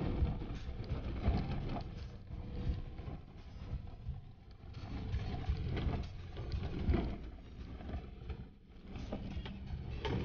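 Suzuki Jimny kei 4x4 driving slowly over a rough, bumpy dirt forest track, heard from inside the cab: a steady low engine rumble with uneven jolts and knocks as the wheels go over ruts and stones.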